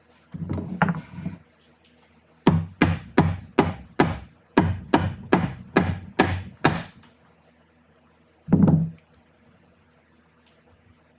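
Hammering: a short flurry of knocks, then a run of about eleven sharp, even blows at a little over two a second, then one last knock.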